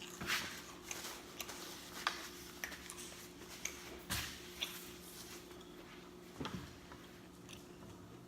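Close-miked mouth sounds of eating fried chicken: irregular soft clicks and wet smacks of chewing, about a dozen scattered through, over a steady low hum.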